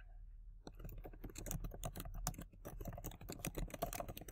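Typing on a computer keyboard: a quick, uneven run of key clicks that starts a little under a second in.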